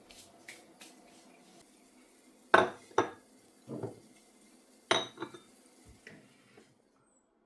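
Crockery and cutlery clinking as they are handled: about six sharp knocks over four seconds, the loudest about two and a half seconds in. The sound cuts off sharply shortly before the end.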